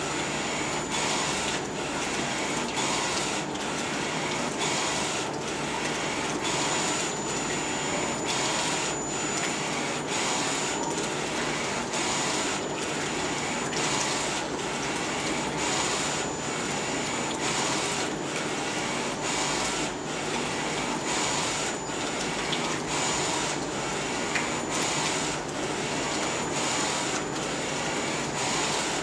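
Digital direct-to-garment T-shirt printer printing: the print-head carriage shuttles back and forth over the platen, its whirr changing in a regular rhythm about once a second over a steady mechanical hum.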